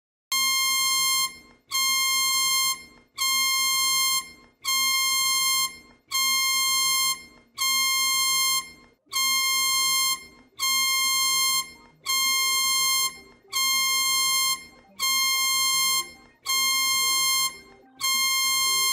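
Emergency alert alarm: a harsh electronic buzzing tone near 1 kHz, beeping about once every one and a half seconds with each beep lasting about a second. It starts suddenly out of silence just after the opening and repeats evenly throughout.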